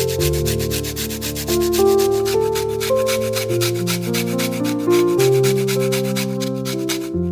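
Rapid, even scraping strokes, about eight a second, over background piano music; the scraping stops suddenly near the end.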